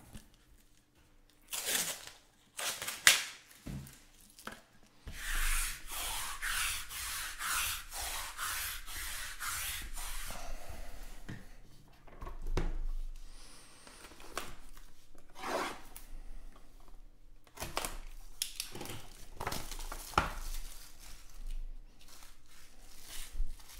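Plastic shrink-wrap being torn and peeled off a sealed trading-card box, the crinkling wrap rubbing against the box in scratchy strokes, with a run of quick rasping strokes, about two a second, near the middle.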